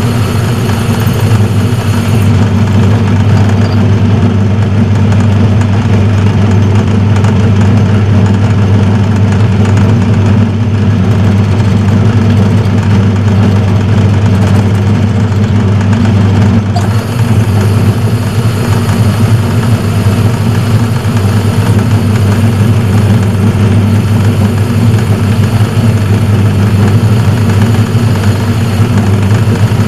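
Metal lathe running steadily with a loud, even hum from its motor and drive.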